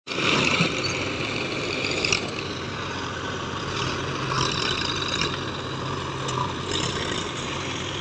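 Diesel engines running steadily: a JCB 3DX backhoe loader and a tractor at work, with a few brief clatters over the drone.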